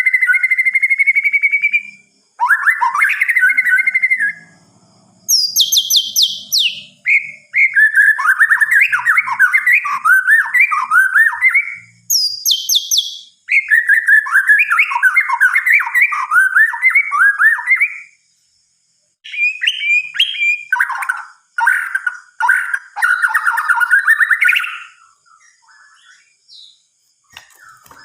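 White-rumped shama (murai batu) singing loudly in a string of varied phrases with short pauses between them. Most phrases are quick warbled and trilled notes, and twice a series of high falling whistles cuts in. The song trails off into a few faint notes near the end.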